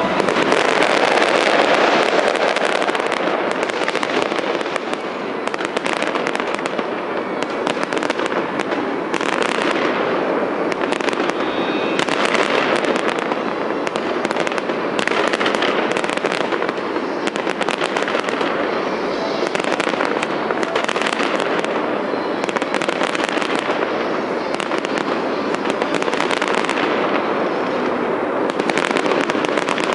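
A fireworks display going off without pause: dense crackling and popping from many bursts overlapping. The loudest stretch comes in the first couple of seconds, with further waves of crackle through the rest.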